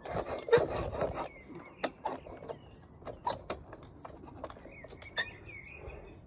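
Metal antenna mast scraping and rubbing in its clamp as it is pushed upward, for about a second, then a few scattered knocks and clicks as it is handled.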